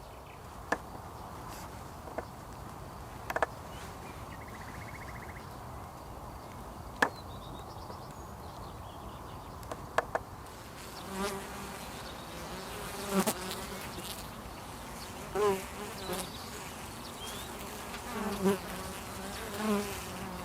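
Honeybees flying close past, their buzzing swelling and fading several times in the second half. A few sharp clicks come in the first half.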